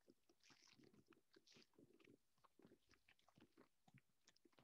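Near silence, with very faint crackles of cellophane and ribbon being handled while a knot is tied.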